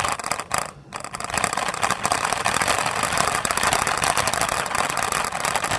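Wheels rolling across a hard floor, making a weird creaking noise with a continuous scraping rattle. There is a brief break just under a second in.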